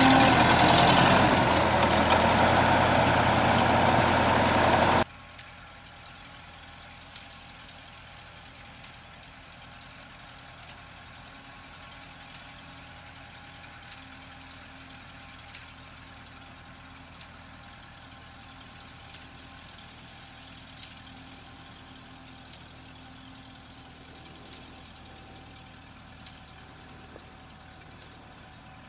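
Vintage tractor engine running loudly while pulling a reaper-binder through standing grain. About five seconds in it drops suddenly to a much quieter, steady distant hum, with a faint click roughly every second and a half.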